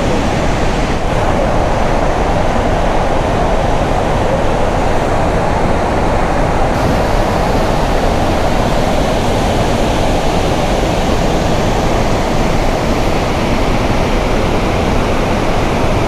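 Steady rushing noise of a high waterfall plunging into a deep gorge, even and unbroken throughout.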